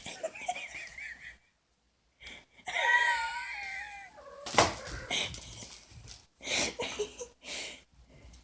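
A person wheezing with laughter in breathy bursts, after an animal's wavering, warbling call about three seconds in.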